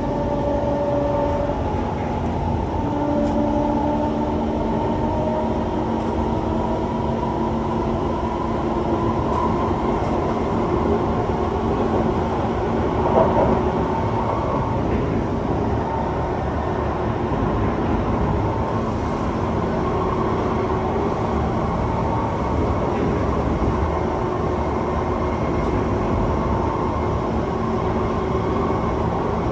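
Kawasaki C151 metro train running on the track, with the steady rumble of wheels on rail and the whine of its traction motors as several steady tones. A brief louder jolt about thirteen seconds in.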